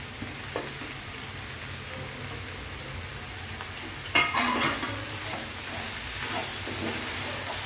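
Avarekalu (field bean) usli sizzling steadily in a pan on the stove. From about four seconds in, a metal spatula scrapes and stirs the beans and freshly added coriander leaves through the pan.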